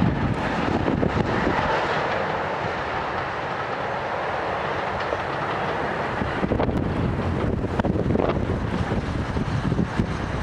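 Distant steam-hauled passenger train running past, with irregular clicks of wheels on the rails standing out in the second half over steady wind noise on the microphone.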